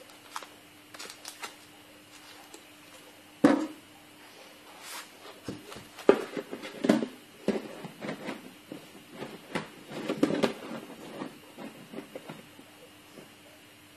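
Irregular knocks, taps and rustles of objects being handled, the sharpest knock about three and a half seconds in, over a faint steady hum.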